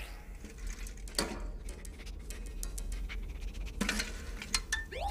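Cartoon sound effects: a scatter of small clicks and light clatters, with a few brief rising squeaks.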